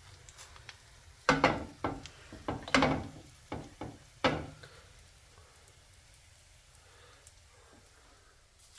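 Kitchen cookware handling: a quick run of about seven sharp knocks and clatters, a flat griddle and utensils knocking on the gas hob, over about three seconds, then only faint background.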